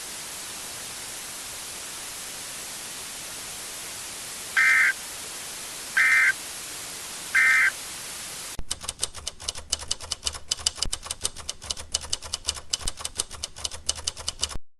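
Emergency Alert System end-of-message data tones: three short, identical screeching bursts about a second and a half apart over a steady hiss, closing the alert. About halfway through, the hiss gives way to crackling static with a low buzz, which cuts off abruptly near the end.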